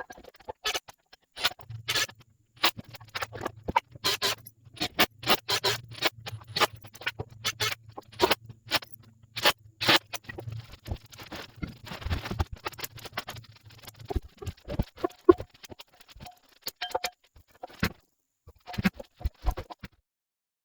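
Irregular knocks, clicks and clatter of tools and building materials being handled, with a low steady hum under them for the first two-thirds.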